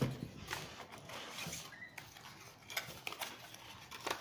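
Light rustling and scattered small clicks as a white USB Type-C cable is taken out of its packaging and uncoiled by hand.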